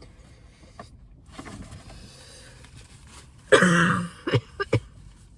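A woman coughing after inhaling a piece of lettuce: one long harsh cough about three and a half seconds in, then two short coughs.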